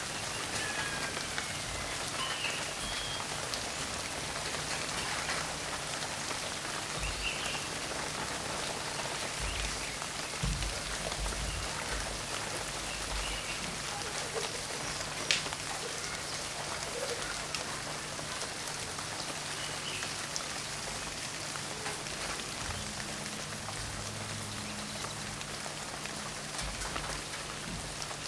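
Steady rainfall, with individual drops ticking on a surface and one sharper drop-hit about halfway through.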